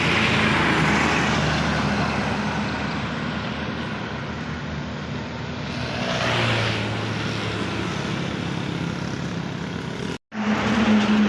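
Heavy road traffic passing close by: engine hum and tyre rush from large vehicles, swelling at the start and again about six seconds in. The sound briefly cuts out near the end.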